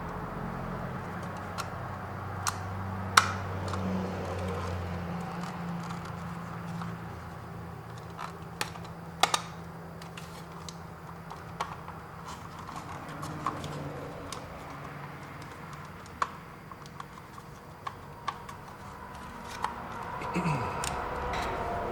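Scattered small clicks and knocks of hands handling plastic dash parts while fitting a new headlight switch into its housing, over a low hum that fades out about five seconds in.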